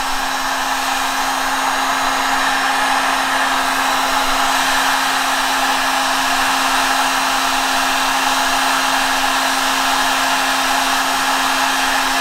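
Electric heat gun running steadily, its fan blowing hot air to soften urethane foam; a steady rush of air with a constant motor hum underneath.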